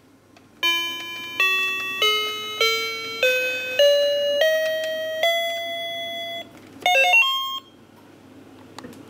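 Toy animal piano's electronic keyboard: eight beeping notes climbing step by step, one per key press, about two a second, the top note held for about a second. A short quick cluster of chirpy tones follows near the end.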